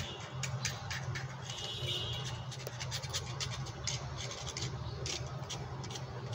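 Small hermetic refrigeration compressor running with a steady low hum, with quick irregular clicks and ticks over it.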